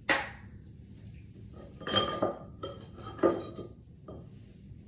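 Toiletry bottles and containers knocking and clinking together as they are picked up and moved about, a few separate sharp clinks with a short ring, the loudest about three seconds in.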